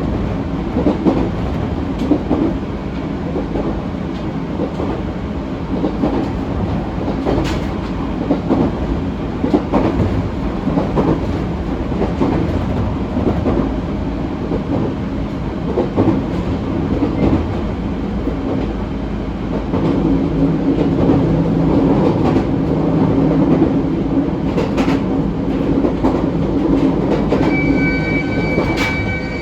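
ET127 series electric train running, with steady wheel-on-rail rumble and the clickety-clack of rail joints. It gets a little louder about two-thirds of the way through, and a steady high-pitched whine sets in near the end.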